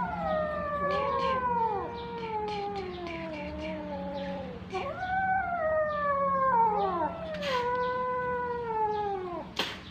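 Kittens mewing, several long drawn-out calls overlapping one another, each falling in pitch, in two long stretches with a brief gap about halfway. A sharp click comes near the end.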